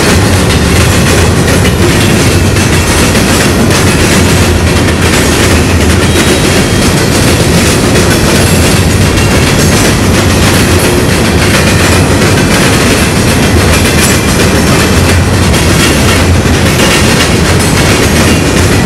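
Empty open-top rock hopper cars of a freight train rolling steadily past, wheels clacking over the railroad diamond crossings over a constant loud rumble.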